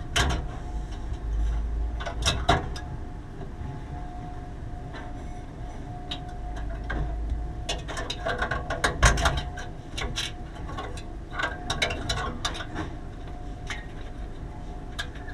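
Irregular clicks, taps and clatter of hand work with tools and parts, in scattered clusters, over a faint steady hum.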